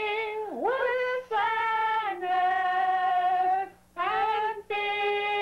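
A single high singing voice, without accompaniment, holding long notes. The pitch dips sharply and swoops back up about half a second in, and short breaks fall between the phrases.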